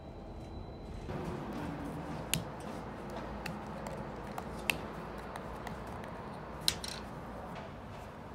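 About a second of bus cabin rumble, then small handling sounds with a few sharp clicks as the plastic screw cap of a carton protein drink is twisted open and the carton is handled.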